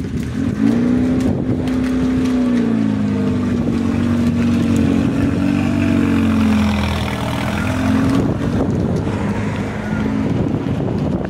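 Volkswagen T3 (Vanagon) van's engine as it pulls away and drives off, the engine note rising and falling as it accelerates away.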